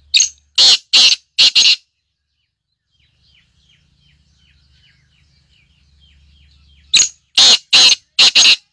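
Caged black francolin calling twice, each call a quick run of four or five loud, harsh, grating notes. Faint small-bird chirps sound in the gap between the two calls.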